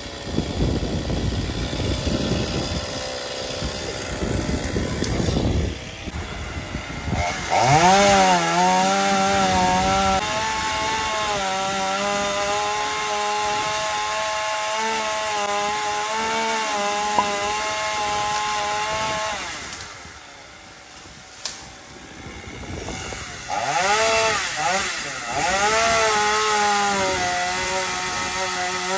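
Chainsaw engine revved up to full throttle about eight seconds in and held high for some eleven seconds, dipping slightly as it cuts into wood, then dropping back to a low idle. About twenty-three seconds in it revs up again, rising and falling as it cuts.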